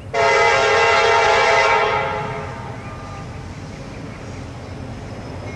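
Approaching diesel freight locomotive's air horn, sounding one long blast of several tones at once. The blast starts right away, holds for nearly two seconds and then fades, over a low steady rumble from the train. It is the opening blast of a horn sequence for the grade crossing.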